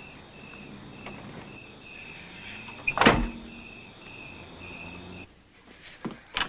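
A vehicle door slams shut once, loudly, about three seconds in, over a steady pulsing chirp of night insects. The outdoor background cuts off a little after five seconds.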